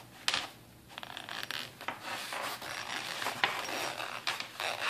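Earphone packaging being handled and opened: irregular rubbing and scraping of the box and its plastic insert, with a couple of sharp clicks, the loudest about a third of a second in.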